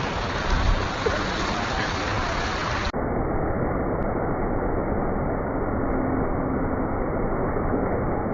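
Steady rushing and sloshing of street floodwater as people wade through it, with faint indistinct voices. About three seconds in the sound abruptly turns duller and more muffled.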